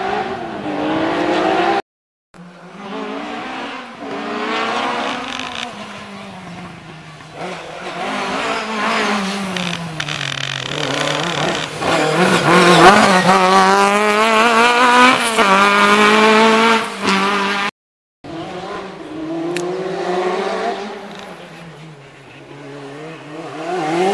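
Historic rally car engines revving up and down through gear changes on a twisty stage. The loudest stretch, in the middle, is a Ford Escort Mk2 accelerating hard with its pitch climbing. The sound breaks off abruptly twice.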